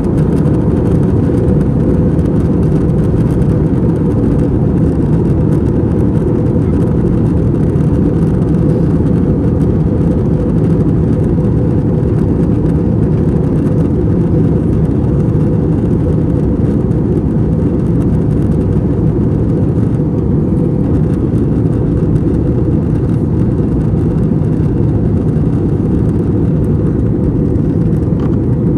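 Steady cabin noise of an Airbus A321-200 in flight: airflow and its IAE V2500 engines heard from inside the cabin as an even, low-heavy rumble that does not change.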